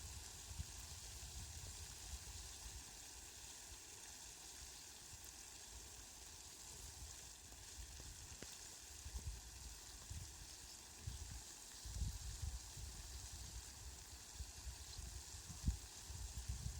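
Steady rain making an even hiss, with an irregular low rumble at times that grows stronger near the end.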